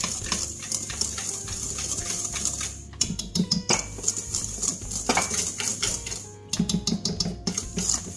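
Wire balloon whisk scraping and clinking against a stainless steel bowl in quick strokes as it mixes dry sugar with tangerine zest, pausing briefly about three seconds in and again near the end. Background music plays underneath.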